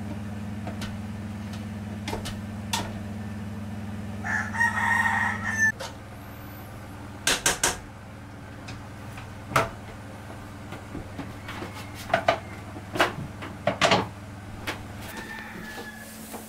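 A rooster crows once, about four seconds in. Later come several sharp clinks of a spoon knocking against the rice cooker's inner pot while rice is scooped out.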